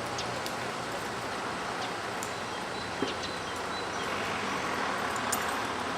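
Steady rushing noise of a strong wind outdoors, with a few faint, short high chirps and a small click about three seconds in.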